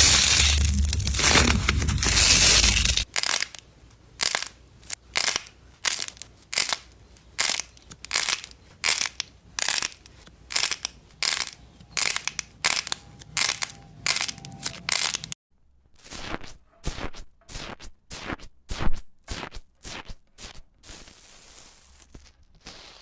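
Close-up crunching and crackling of crunchy slime being pressed and squeezed: a dense burst of crunching for about three seconds, then a run of sharp crackles about two a second, with a short break about two-thirds of the way through.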